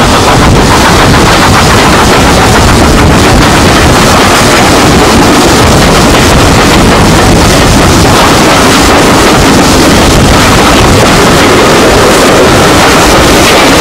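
GWR 5600-class 0-6-2 tank engine No. 5619 working hard, its exhaust beats coming in a rapid, continuous stream heard from an open carriage window, so loud they overload the recording. Near the end the train runs into a tunnel.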